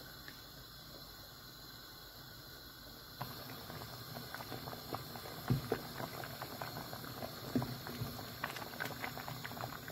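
A pot of rice boiling in water, bubbling steadily. About three seconds in the bubbling gets suddenly louder, with many small irregular pops.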